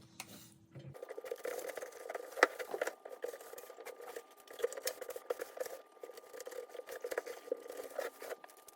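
Scrub brush scrubbing the rubber door seal of a front-loading washing machine: quick, irregular scratching and rustling strokes with small knocks, starting about a second in.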